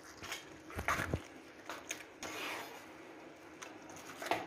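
Metal spoon scraping and stirring churned cream in a metal bowl in irregular strokes, the loudest about a second in. The cream is breaking into butter and a watery liquid.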